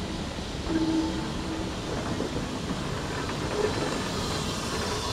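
Small steam-hauled train passing: a green saddle-tank steam locomotive, a wagon and a wooden coach rolling by on the rails, with steam hiss. There is a brief squeal about a second in.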